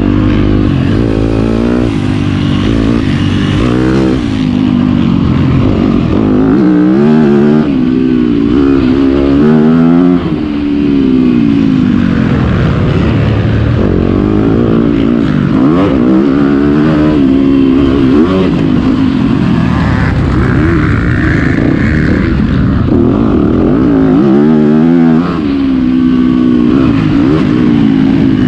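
Yamaha YZ250F four-stroke single-cylinder motocross engine being ridden hard, heard from the bike's on-board camera: the pitch climbs and falls again and again as the rider opens and shuts the throttle, with brief drops about ten seconds in and again near the end.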